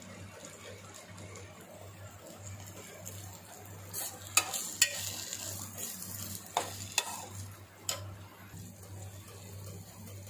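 Egg scrambled with onions and tomatoes frying in a steel pot, stirred and scraped with a metal spoon, with a few sharp clinks of the spoon against the pot between about four and eight seconds in, over a steady low hum.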